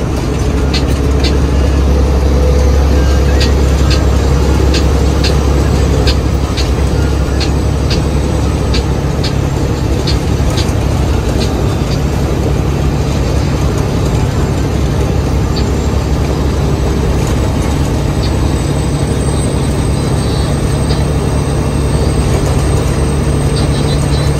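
Heavy diesel truck engine running steadily with a low drone, with a regular ticking about twice a second through roughly the first half.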